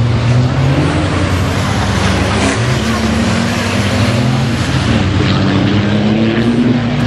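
Racing truck's diesel engine running hard under load, its pitch climbing slowly and stepping down at a gear change near the end.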